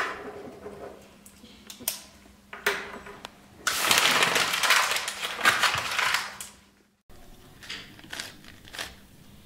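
A sheet of paper crumpled in a fist: a loud crinkling crackle lasting about three seconds, after a few short pen-on-paper sounds. After a sudden cut, a Rubik's cube is twisted with a few quick plastic clicks.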